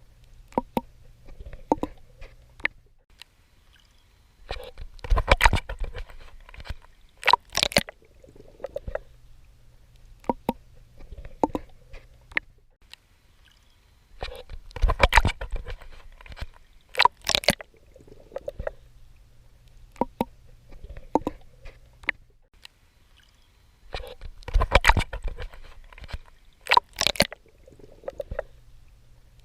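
A swimmer's strokes splashing and sloshing in ocean water, in groups of sharp splashes that come about every ten seconds, with softer sloshing and a faint low hum between them.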